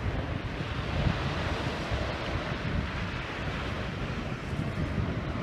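Wind buffeting the microphone: gusty low rumbling over a steady broad rushing noise.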